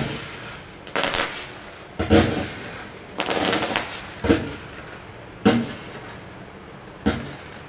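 Standard Fireworks Single Ignition Multi Effect firework pack firing: about seven sharp shots and bursts, roughly one a second. Two of them are quick rattling clusters of reports.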